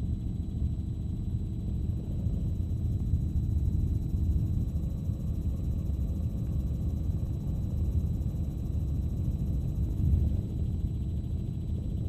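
Steady low rumble of a helicopter's engine and rotor heard from inside the cabin, with a faint thin high tone running over it.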